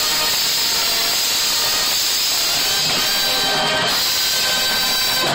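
High school marching band playing loudly in full, brass and percussion blended into a dense, steady wash in which no single note stands out.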